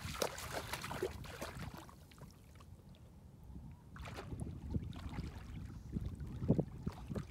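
Wind rumbling on the microphone over lake water, with light splashing and sloshing from a dog moving through shallow water. The splashing dies down for a couple of seconds in the middle, then picks up again.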